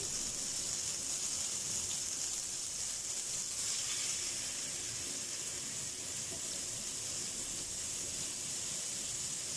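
Flour-dredged pieces of cod frying in hot oil, a steady high-pitched sizzle.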